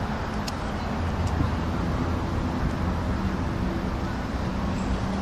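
Steady rumble of road traffic on the bridge overhead, with an engine hum that stands out more clearly from about halfway through.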